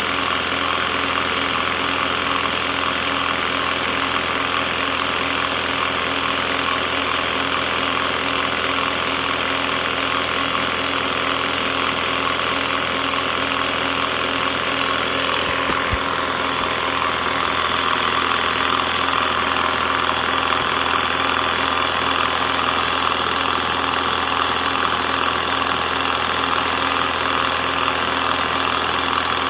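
Air compressor running steadily while inflating a freshly mounted tire to seat it on the rim.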